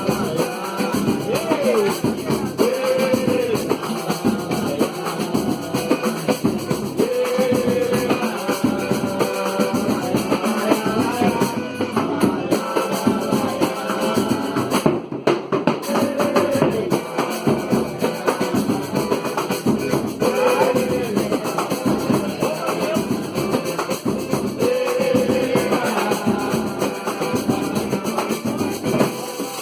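A band playing music, with a drum kit and percussion keeping a steady beat under a sustained melody.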